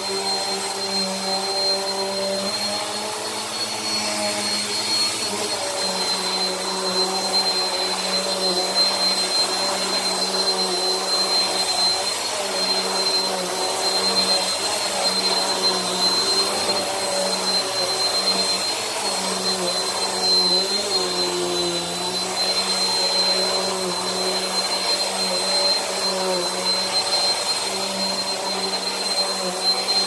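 Bissell PowerForce Helix upright vacuum running on carpet: a steady motor drone with a constant high whine, its lower hum wavering slightly in pitch as the machine is pushed along.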